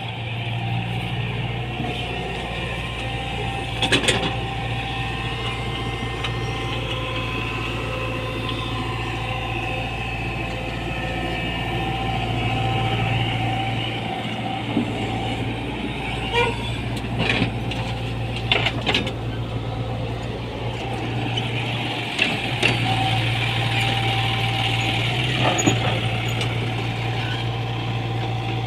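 Tata Hitachi 120 excavator's diesel engine running steadily, with several sharp knocks spread through and a louder, higher rush of sound for a few seconds near the end.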